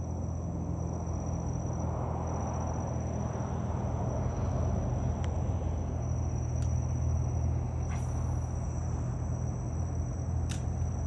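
Outdoor ambience: a steady low rumble under a high, steady insect trill that drops out briefly now and then, with a few sharp clicks in the second half.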